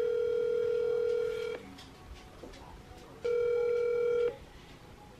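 Ringback tone of an outgoing phone call heard over the phone's speaker: a steady electronic tone that stops about a second and a half in, then after a pause a second, shorter ring of about a second. The call is ringing and has not yet been picked up.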